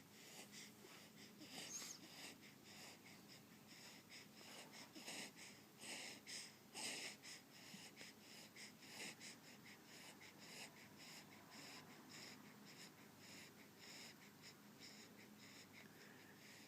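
Faint breathing of a sleeper, with many soft, irregular clicks and a few fuller breaths, but no loud snore.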